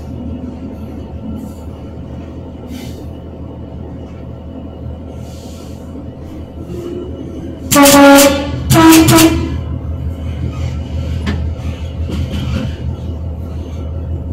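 Class 66 diesel locomotive's two-tone horn sounded in two short blasts about halfway through, a lower note and then a higher one, each under a second. Underneath runs the steady rumble of the locomotive's diesel engine and wheels as heard from the cab.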